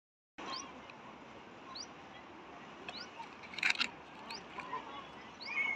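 Birds calling, one repeating a short rising chirp about once a second, with scattered softer chirps over a steady hiss. A brief burst of sharp clicks comes about halfway through.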